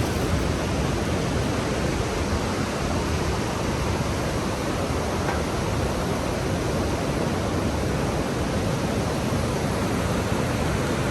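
Steady, even roar of a large waterfall at Niagara Falls, crashing water with no breaks.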